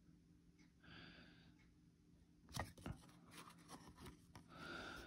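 Near silence with faint handling of a stack of trading cards: soft rubbing of card stock against card stock, and two light clicks about two and a half seconds in.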